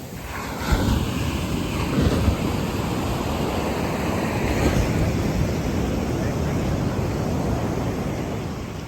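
Surf washing up the beach, a swell of rushing noise that builds about a second in and eases off near the end, with wind buffeting the microphone in a low rumble.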